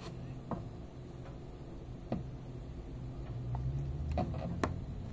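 A few scattered light clicks, about five over the few seconds, from fingertip taps on a car head unit's touchscreen, over a faint low hum.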